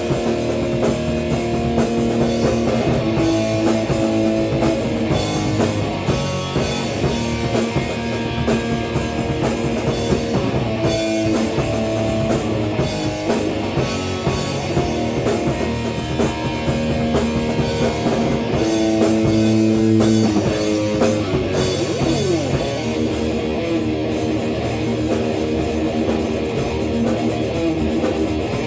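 A rock band playing a metal song in rehearsal: guitar with long held notes over a drum kit.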